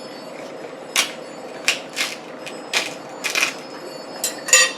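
King crab leg shell cracking and snapping: about seven short, sharp cracks starting about a second in, the loudest near the end.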